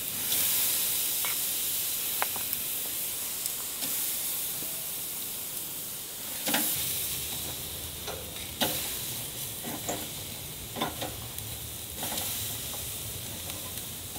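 Vinegar-marinated pork sizzling on a charcoal grill as pieces are laid on the hot grate, a steady hiss. Several sharp clinks of a metal fork against the grill grate.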